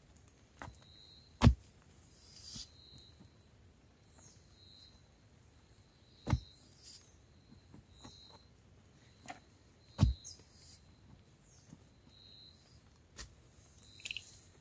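Three heavy thuds a few seconds apart, the first the loudest, with lighter knocks between them. Behind them a short high chirp repeats every second or two over a faint steady high buzz, typical of an outdoor rural background.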